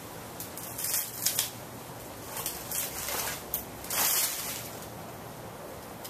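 A 1986 Hunter Original oil-bath ceiling fan running on high speed, a steady whoosh from the spinning blades. Several irregular bursts of rustling come about one, three and four seconds in, louder than the fan.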